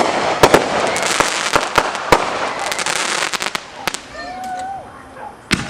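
Fireworks going off: many sharp bangs over a dense crackle, thinning out after about four seconds, with one more bang near the end.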